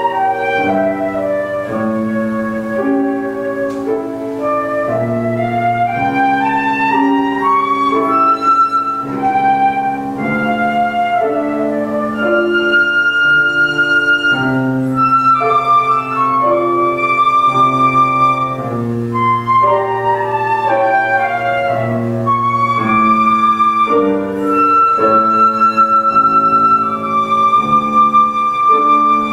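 Flute and grand piano playing together: the flute carries the melody, with quick climbing and falling runs and several long held high notes, over piano chords.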